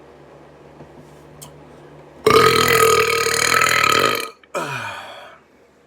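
A long, loud deliberate burp lasting nearly two seconds, starting a little over two seconds in, followed by a shorter sound that falls in pitch.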